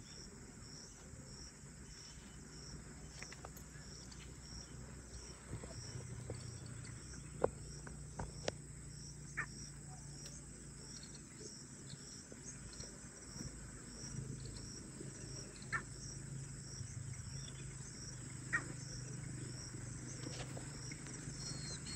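Faint natural ambience: a high chirp repeating in a steady, even rhythm, typical of an insect, over a low steady hum, with a few sharp short clicks or notes scattered through. Faint bird calls with gliding pitch begin near the end.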